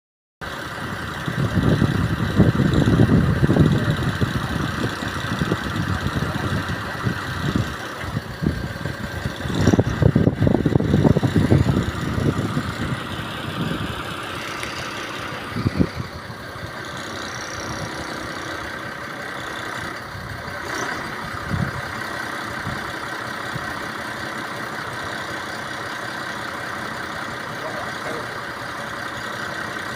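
An engine running steadily, with louder, uneven low rumbles twice: in the first few seconds and again around ten seconds in.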